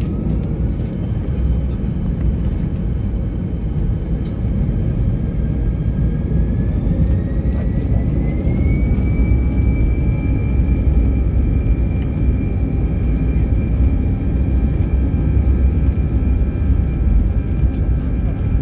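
Airbus A320's CFM56 jet engines spooling up, heard from the cabin: a whine that rises in pitch for about nine seconds and then holds steady over a heavy rumble, as the engines come up to takeoff thrust.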